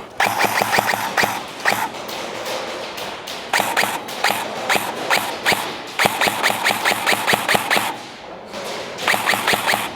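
Airsoft gun fire in four bursts of rapid, evenly spaced shots, about eight a second, with short pauses between the bursts.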